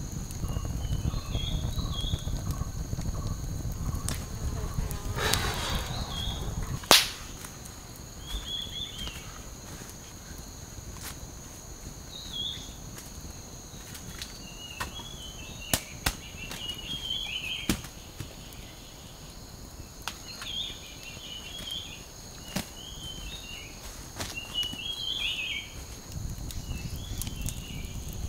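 Forest ambience: birds chirping in short phrases on and off over a steady high hum, with scattered sharp snaps and crackles from a small wood campfire. One loud snap comes about seven seconds in, and a low rumble stops at about the same moment.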